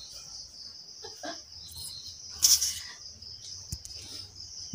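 Steady high insect chirring, with one short, loud burst of noise about two and a half seconds in.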